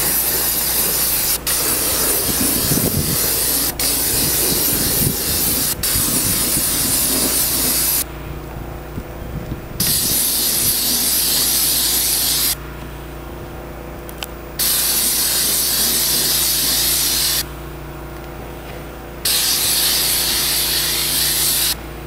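Spray wand hissing as liquid roof sealer coating is sprayed onto clay barrel roof tiles. The spray cuts off three times for about two seconds each, and during those breaks a steady low hum carries on.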